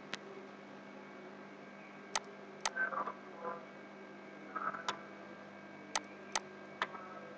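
Computer mouse and keyboard clicks: about seven sharp, separate clicks spread over several seconds, over a steady low electrical hum.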